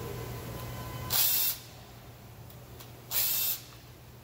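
Two short bursts of hissing spray, about two seconds apart, each lasting under half a second.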